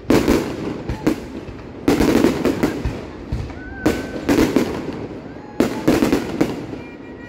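Aerial fireworks bursting overhead: about eight sharp bangs spread through the few seconds, some in quick pairs, with crackling between them.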